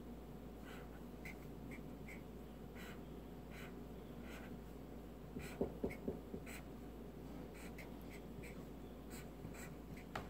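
Felt-tip marker drawing on paper: faint, short scratching strokes, with a few louder taps about halfway through.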